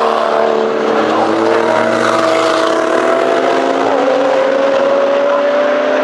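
Race car engines under acceleration, their pitch climbing steadily. About four seconds in, the pitch drops sharply on an upshift, then climbs again.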